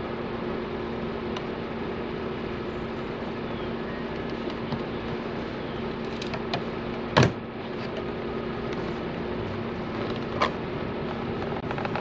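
Flathead screwdriver prying the plastic trim cover off a Nissan Sentra's interior door handle: small clicks, then a sharp snap about seven seconds in and another about ten seconds in as the retaining clips let go. A steady low hum runs underneath.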